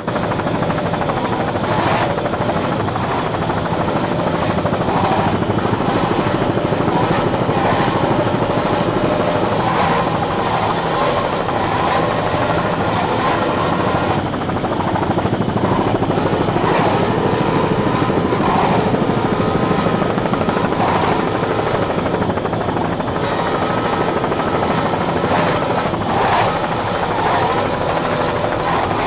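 Steady, loud drone of a helicopter's rotor and engine, as heard from the camera helicopter over the racecourse. It holds at an even level without a break, with a faint wavering hum underneath.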